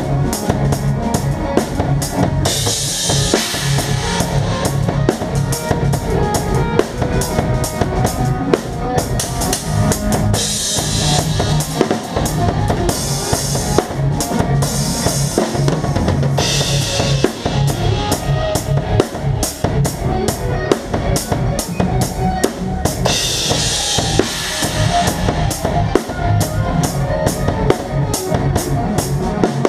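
Drum kit played live with the band: rapid, steady drum strokes on bass drum and snare throughout, with cymbal crashes ringing out in washes every few seconds over the band's pitched instruments.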